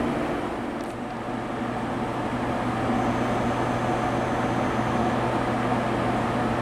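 Steady hum of an electric train standing at a station platform, with a low drone underneath.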